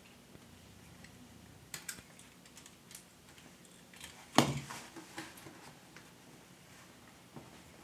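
Scattered small clicks and taps of a utility knife and a bolt being handled on a shower pan liner, with one louder knock about four seconds in.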